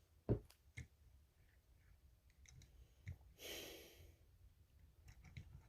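A few faint clicks and taps, and one soft breath about three and a half seconds in, over near silence.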